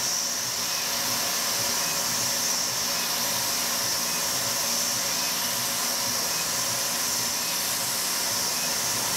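Tormach CNC mill cutting aluminium with a 3/16-inch three-flute end mill at high spindle speed: a steady high whine over an even hiss.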